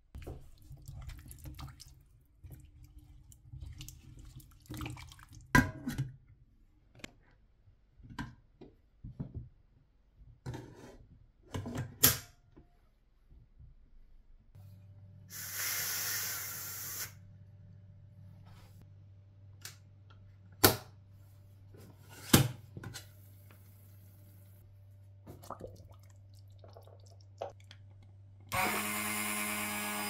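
Cooking sounds at a pressure cooker on the hob: clinks and knocks of a spoon and pot, a rush of noise lasting a couple of seconds midway, and two sharp clicks as the pressure cooker lid is locked shut. Near the end an immersion blender starts and runs steadily.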